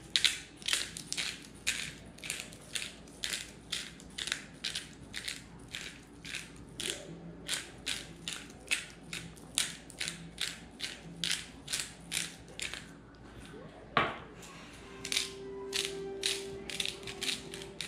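Hand-twisted spice grinder grinding seasoning in quick crunching strokes, about two to three a second. The strokes break off briefly about two-thirds through, a single sharp click follows, then the grinding resumes.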